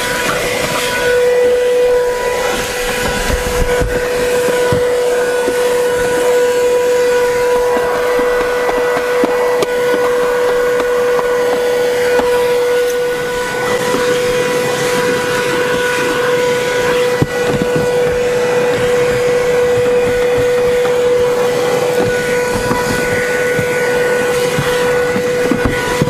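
Comfyer 22.2 V cordless cyclonic vacuum running with its narrow crevice nozzle: a steady high motor whine over a rush of air as it sucks grit off a rubber floor mat. One brief knock about two-thirds of the way through.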